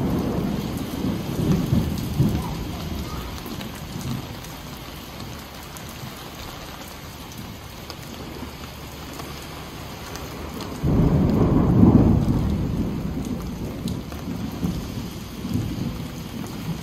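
Thunder rumbling over steady rain. One roll fades over the first few seconds, and a second breaks suddenly about eleven seconds in, then dies away.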